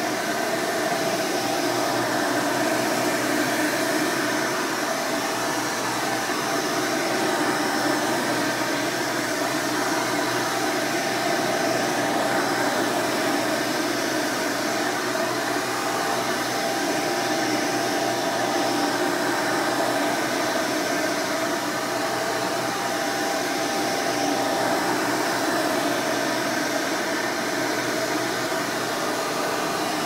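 Hoover Elite upright vacuum cleaner, fitted with an Elite Supreme motor, running steadily while it is pushed over carpet. Its rush of air carries a thin steady whine.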